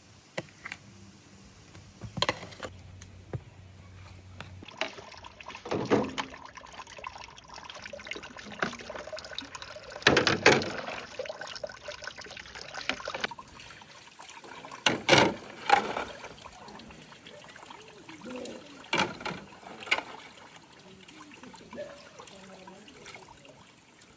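Water splashing and trickling in irregular surges, with scattered knocks and clatters.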